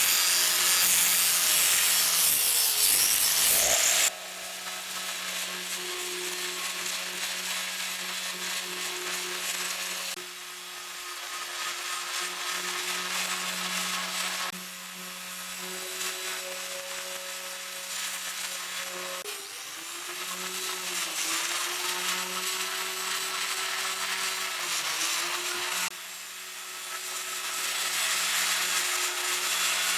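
Electric power tool running with a steady hum and a rough hiss as it abrades metal. The hum dips briefly in pitch twice in the second half, as the tool is pressed against the work. The sound jumps abruptly in level every few seconds.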